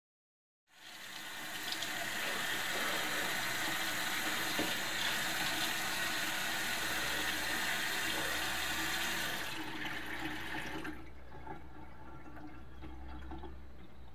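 Bathroom tap running full into a sink, starting suddenly about a second in and shut off about ten seconds in. A low steady hum comes in about halfway and carries on after the water stops.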